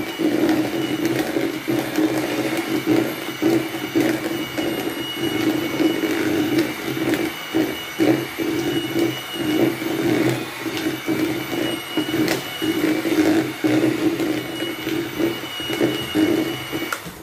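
Electric hand mixer running steadily, its beaters whisking cake batter in a plastic bowl with frequent short knocks against the bowl. The motor cuts off just at the end.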